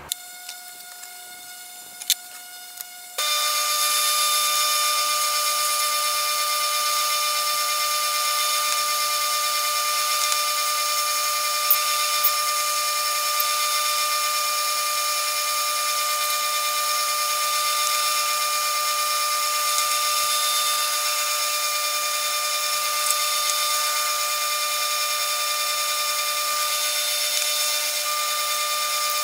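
A couple of sharp clicks, then an old Delta bench-top lathe switches on about three seconds in and runs steadily with a high whine. A brad point bit in the tailstock drill chuck bores through an acrylic pen blank.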